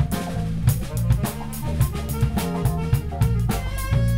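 Live big band playing a funk tune: drum kit keeping a steady beat under a heavy electric bass line, with horn and keyboard parts over the top.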